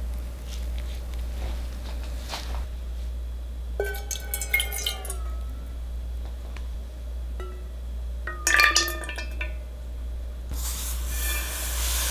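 Kitchenware clinking: two short clusters of ringing ceramic or glass clinks as bowls and cups are handled. Near the end, a steady hiss as a stream of granulated sugar pours into a ceramic bowl.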